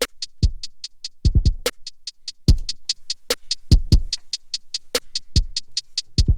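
Programmed drum-machine beat looping from Maschine: fast closed hi-hats ticking about five times a second, a snare about every second and a half, and deep kicks that drop in pitch.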